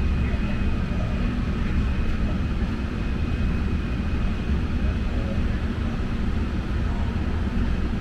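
Furnace air handler blower running steadily on high speed, a constant low rush of air through the return and filter slot with a thin steady high tone over it. It is moving about 1500 CFM against very high static pressure.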